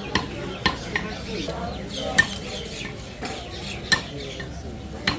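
A butcher's knife cutting beef: about six sharp, irregular knocks and metallic clinks, a couple of them ringing briefly.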